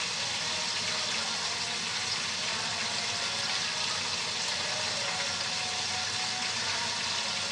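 Chicken frying in hot oil, a steady sizzle.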